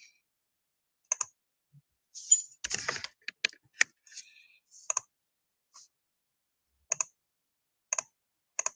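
Irregular, sharp clicks from a computer keyboard and mouse being used on a website's randomizer: a pair about a second in, a quick cluster a couple of seconds in, then single clicks about a second apart.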